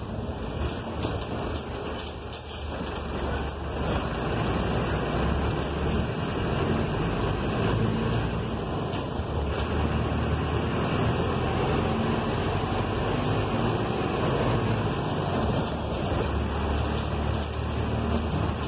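A city bus driving, heard from inside: the engine running under a steady hiss of tyres on a wet road. It gets louder about four seconds in and then holds steady.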